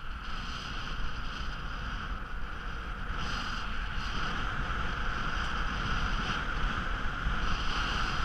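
Steady hiss of skis or a board sliding fast over snow, with wind rushing on the microphone.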